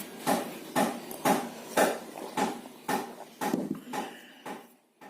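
A run of sharp knocks or taps, about two a second, each with a short ring, dying away near the end.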